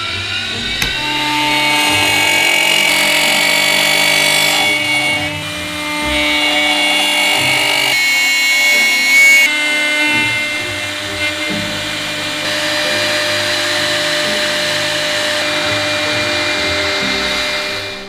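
High-speed router cutting through a laminated wooden board: a steady high-pitched whine over the rush of the bit cutting, its pitch shifting several times.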